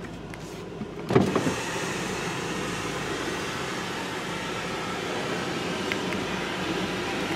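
A car's power window is lowered about a second in. The steady rushing noise of an automatic in-bay car wash running in the bay ahead then comes in.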